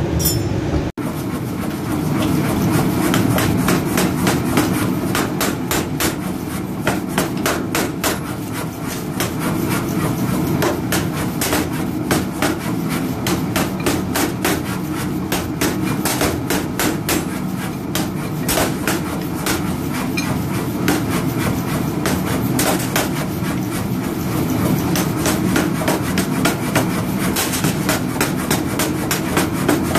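Mechanical power hammer forging a red-hot bar of old iron leaf: the ram strikes in quick, repeated blows over the steady drone of the machine.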